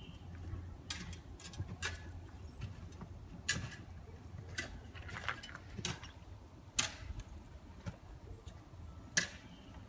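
Footsteps crunching and knocking on ice as a person climbs an iced-over slope: irregular sharp cracks roughly a second apart, a few louder than the rest, over a low steady hum.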